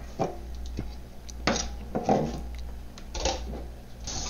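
A large kitchen knife knocking and scraping on a plastic cutting board as beef is sliced and the cut pieces are swept across the board: a few sharp taps, with three louder scrapes spaced about a second apart.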